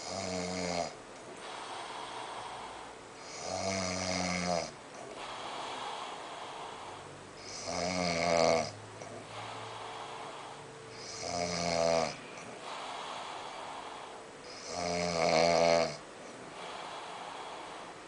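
A sleeping person snoring: five snores in a steady rhythm, each about a second long and coming every three and a half to four seconds, with quieter breathing between them.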